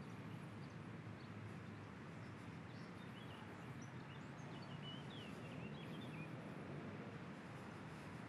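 Faint outdoor ambience: a steady low background rumble, with a few faint bird chirps from about three to six seconds in.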